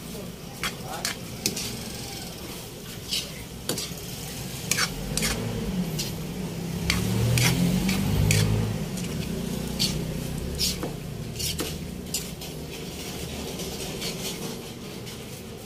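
A metal spatula stirring a thick saucy pork igado in a wok, with irregular clinks and scrapes against the pan over a light sizzle. A low drone swells and fades through the middle.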